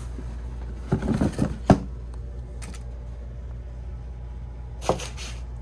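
A cardboard shoe box being handled as its lid is lifted off: rustling and a few sharp knocks about a second in, and one more click near the end, over a steady low hum.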